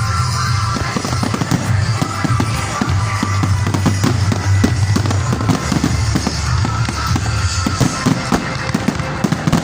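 Fireworks display going off in a rapid, continuous volley of bangs and crackles, with music playing under it.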